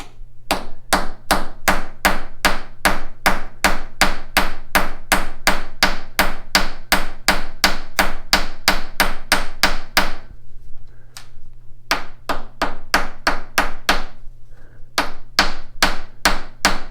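Hammer tapping rapidly on a freshly machined steel knurled nut, knocking down the burrs, about three to four taps a second with short pauses about ten and fourteen seconds in.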